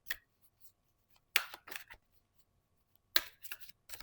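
A deck of cards being shuffled and handled: short clicks and rasps in three brief clusters, one near the start, one about a second and a half in, and one near the end.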